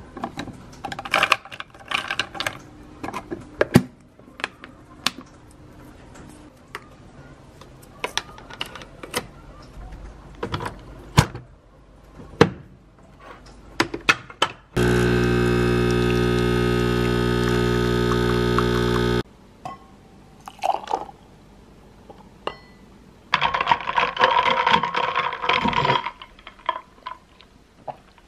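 Clicks and clatter of capsules and a machine lid being handled, then a Nespresso Essenza Mini capsule coffee machine's pump buzzing steadily for about four and a half seconds while it brews. The buzz starts and stops abruptly.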